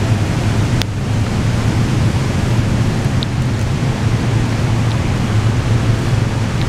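Steady low hum and rushing noise of an underground rail station, with a faint click about a second in.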